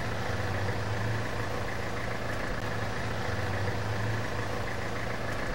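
Steady mechanical hum of an idling vehicle or machine, with a constant high whine over it.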